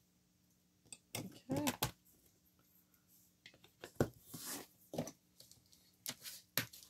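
Clicks, taps and light rustling from handling a clear acrylic stamp block and an ink pad on a craft mat. The sounds are scattered, starting about a second in.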